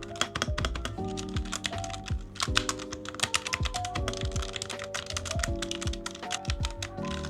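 Typing on a Newmen GM610 mechanical keyboard: a fast, uneven stream of key clicks, over background music.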